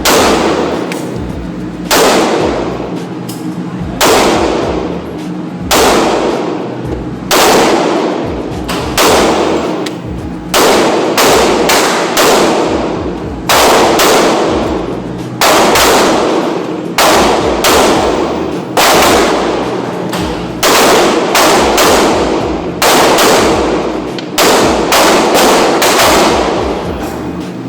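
Gunshots at a shooting range: a long string of single shots at an uneven pace, roughly one every second or so, each ringing out and dying away.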